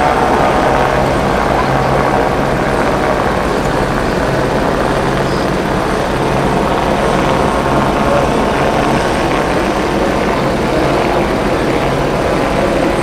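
Loud, steady engine drone with a constant low hum underneath.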